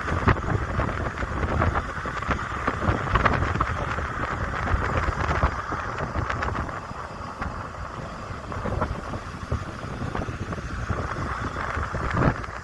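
Road and wind noise of a moving car, with gusts of wind buffeting the microphone.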